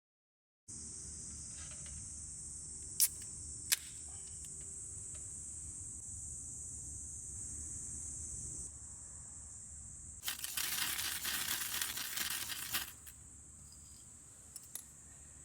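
Crickets chirring in a steady high-pitched drone after a moment of silence. Two sharp clicks come a few seconds in, and about two-thirds through there is a louder rustling noise lasting about two and a half seconds.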